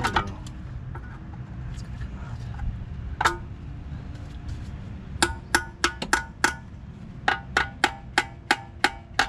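Sharp, ringing knocks of a metal hand tool striking metal parts in a car's engine bay: a single knock at the start, another about three seconds in, then a quick, even run of taps, about three a second.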